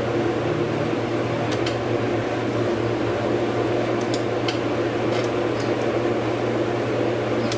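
Steady low mechanical hum like a running shop fan, with a few faint, scattered clicks of a hand socket wrench working at a stubborn bolt.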